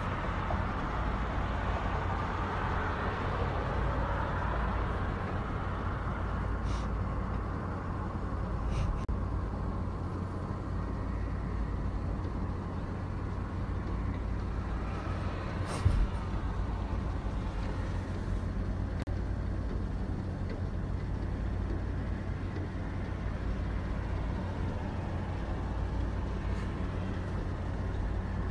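A steady low rumble of background noise, with one short knock about sixteen seconds in.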